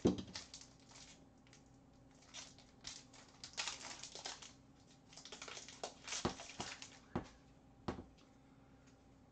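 Hockey card pack wrapper crinkling as it is opened, with cards being flicked and shuffled in the hands. There are irregular rustles and a few sharp clicks and taps, the loudest right at the start.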